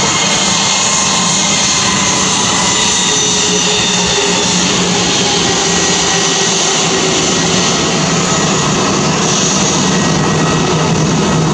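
Airbus A321-211's CFM56 turbofan engines running at low taxi power as the airliner rolls past, a steady jet whine over constant engine noise.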